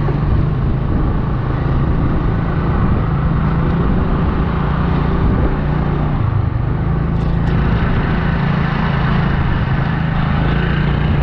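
Motor scooter engine running steadily while riding, under a steady rushing noise.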